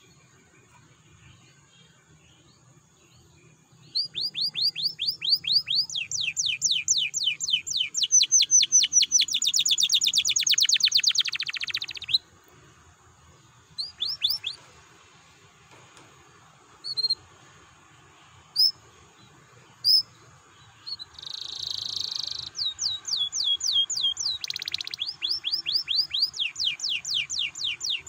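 Domestic canary singing: after a few quiet seconds, a long fast trill of repeated downward-sweeping whistled notes that grows louder and ends in a harsh buzzy roll. A few single chirps follow, then a second buzzy burst and another long fast trill.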